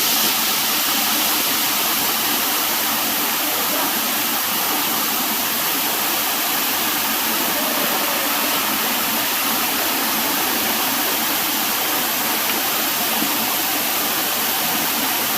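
Steady rush of running mountain water, swollen after rain: an even hiss with no breaks or changes.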